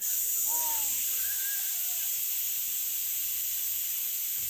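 A loud, steady high-pitched hiss that starts suddenly and holds without change, with a faint voice briefly early on.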